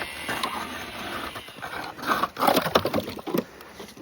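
Hand ice auger cutting through thick lake ice: a steady grinding scrape, then a run of irregular crunches and cracks as the blades chew through, near the bottom of the hole.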